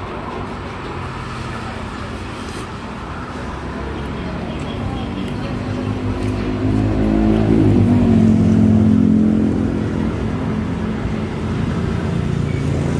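Road traffic with a motor vehicle's engine passing close by: its low hum grows louder from about four seconds in, is loudest around eight or nine seconds, then fades.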